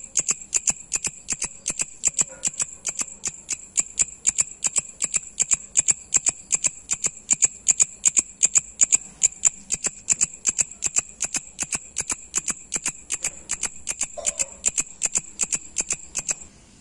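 Large brown leaf-mimic katydid stridulating: a steady, rapid train of sharp, high, rasping clicks at about five pulses a second. The calling stops abruptly near the end.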